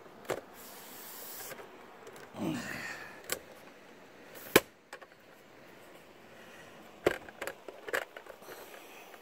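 Handling noise from a camera tripod being shifted and set down on rock: scattered sharp clicks and knocks, loudest about four and a half seconds in, with a brief short sound dropping in pitch about two and a half seconds in.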